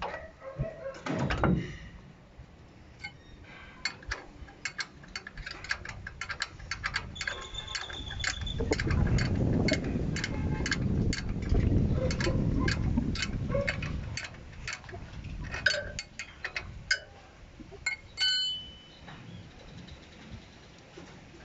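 Hand tools and metal parts clicking and clinking while a truck's rear brake caliper is unbolted and taken off, with a rougher, louder scraping stretch in the middle and a ringing metal clink near the end.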